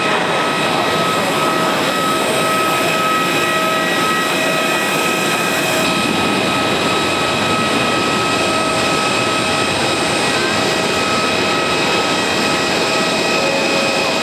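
Airbus A321-211's CFM56 turbofan engines on the landing rollout: steady jet noise with several constant high whining tones above it.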